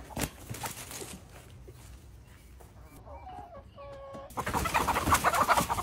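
Hens clucking while being caught, with a short call about three seconds in and then a loud squawking commotion from about four seconds in.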